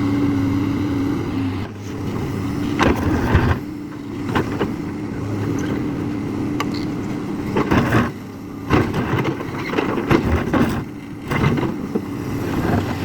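JCB excavator's diesel engine running with a steady hum, overlaid from about three seconds in by a series of irregular sharp knocks and clanks.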